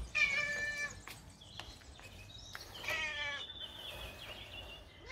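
A stray domestic cat meowing twice: one call right at the start and a shorter one about three seconds in.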